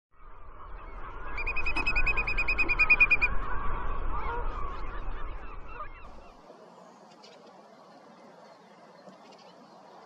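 Many birds of a large flock calling loudly at once, their calls overlapping, with a rapid run of evenly repeated notes from about one and a half to three seconds in. The calling fades out about six seconds in, leaving a faint background.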